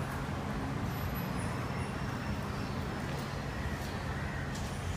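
Steady vehicle engine rumble with road noise.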